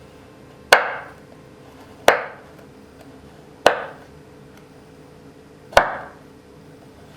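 Four sharp knocks on a hard surface, spaced about one and a half to two seconds apart, each with a short ringing tail.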